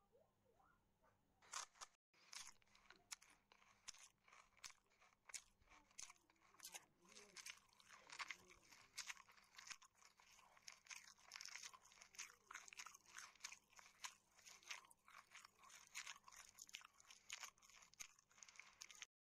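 A person chewing crunchy fried pork and fresh mint leaves: a quick, dense run of crisp crunches that cuts off suddenly near the end.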